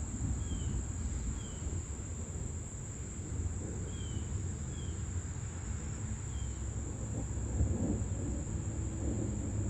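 Steady high-pitched insect chorus, with a few short high chirps spaced a second or more apart and a low rumbling noise underneath.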